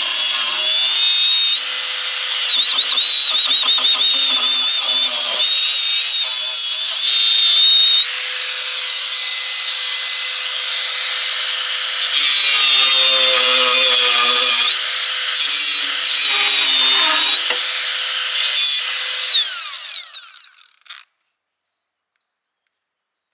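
Electric power tool working wood, its motor whine sagging and recovering under load. About twenty seconds in it winds down with a falling pitch and stops.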